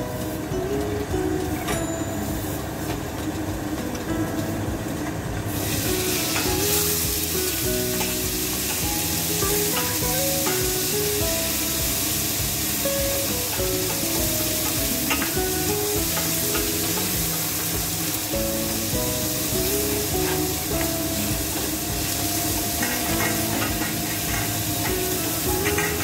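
Chicken mechado sizzling in a stainless steel pot while a wooden spoon stirs it. The sizzling hiss starts suddenly about five and a half seconds in, over background music.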